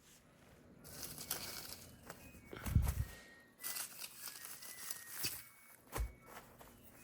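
Packaging being handled: crinkling and rustling in two stretches, with a dull thump about three seconds in and another near six seconds.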